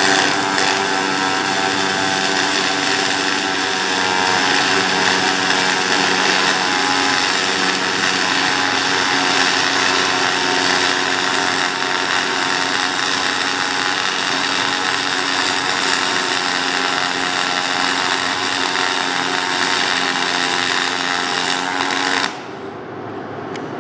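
Pulsed MIG (GMAW) welding arc on 1/8-inch aluminum, fed 3/64-inch 4043 wire through a push-pull gun under straight argon: a steady, loud buzzing hum of the pulsing arc as the bead is run along a lap joint. The arc stops shortly before the end.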